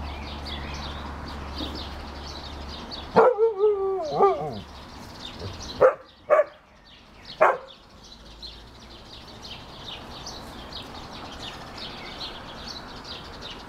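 Siberian huskies vocalising during play: about three seconds in, one gives a loud wavering, whining call lasting about a second and a half, then come three short sharp barks over the next few seconds. Small birds chirp faintly in the background throughout.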